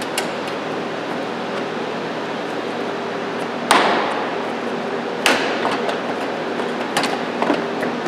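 Hard plastic knocks and clicks of a car headlight assembly being pushed and seated against the front body: two sharp knocks a second and a half apart near the middle, then a few lighter clicks near the end, over a steady background hum.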